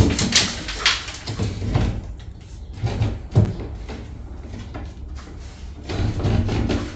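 A wooden stick knocking and prying against a wooden plank ceiling, giving a series of sharp wooden knocks and rattles from the loose boards. There are several knocks in the first two seconds and two more about three seconds in.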